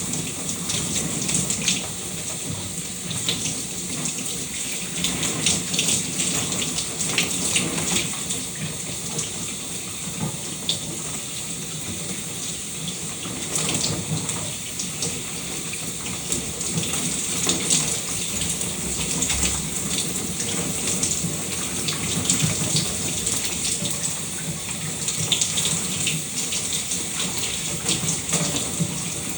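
Running shower water: a steady hiss of spray with many small splashes and patters throughout.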